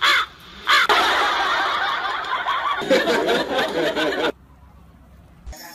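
Several people laughing loudly at once after a couple of short shouts; the laughter stops abruptly about four seconds in.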